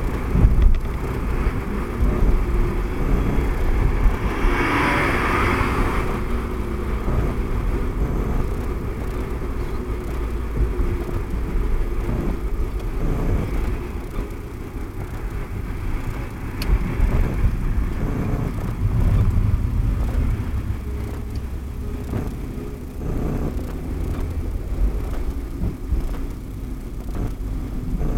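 Car dashcam audio while driving: a continuous low rumble of road and engine noise with a fluttering, uneven low end, the abnormal noise the owner hears in the dashcam's recordings. A brief hiss swells and fades about four to six seconds in.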